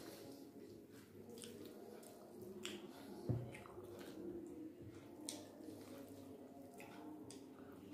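Faint wet clicks and smacks of eating rice by hand: fingers mixing rice and curry on a plate, and mouth smacking while chewing, over a faint steady hum. A soft low thump comes a little past three seconds in.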